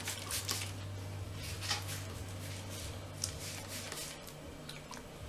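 Faint rustling and scattered light clicks of a plastic hair-product bottle being handled and pressed against thick, dry hair, over a low steady hum that stops about four seconds in.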